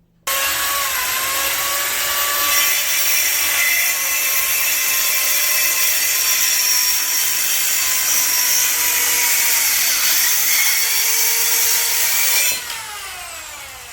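Rockwell 4-1/2 inch compact circular saw starting abruptly, running at full speed and cutting through a board smoothly. It is switched off near the end and spins down with a falling whine.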